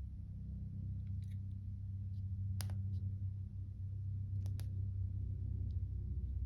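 Fidget spinner spinning with a steady low whir, and a few sharp clicks from it being handled, two of them close together about four and a half seconds in.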